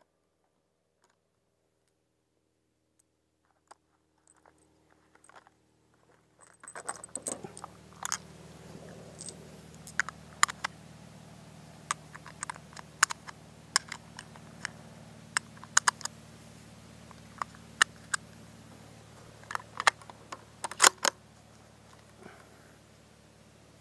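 Near silence for several seconds, then a steady low hum with a scattered series of sharp clicks and clacks from something being handled, the loudest pair near the end.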